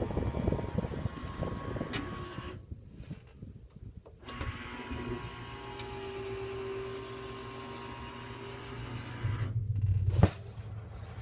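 Wolf downdraft ventilator's motor running with a steady hum and a held whine, after some handling noise at the start; a sharp click comes about ten seconds in.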